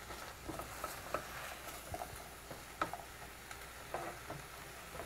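A utensil stirring chickpeas and vegetables in a stainless steel pot, with scattered light clicks and scrapes against the pot over a faint sizzle.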